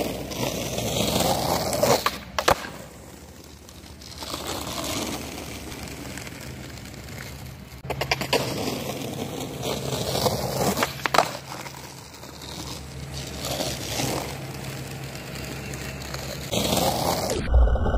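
Skateboard wheels rolling over coarse asphalt, the rumble swelling and fading in several waves, with a few sharp clacks of the board striking the ground.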